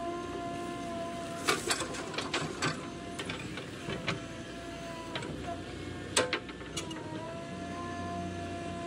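JCB 3DX backhoe loader at work: a steady whine from the running engine and hydraulics, broken by sharp metallic clanks of the bucket. The clanks come in a quick cluster a second or two in, with single loud ones later. The whine drops out briefly past the middle, then comes back.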